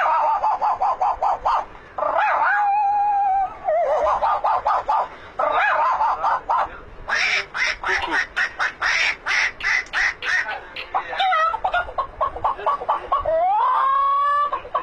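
Rapid runs of duck-like quacking in several bursts, about eight to ten quacks a second. It is broken by a drawn-out call about three seconds in, and by a call that rises in pitch and holds near the end.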